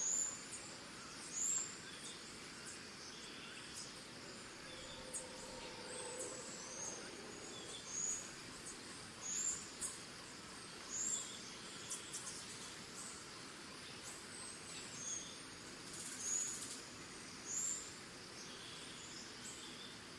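Tropical forest ambience: crickets trilling steadily, with birds chirping over them. One short, high chirp repeats about every second and a half.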